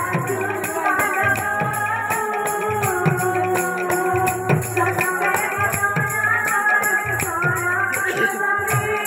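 Devotional kirtan music: a two-headed barrel drum (khol/mridanga) strikes a steady rhythm under jingling hand cymbals, with a held melody running over them.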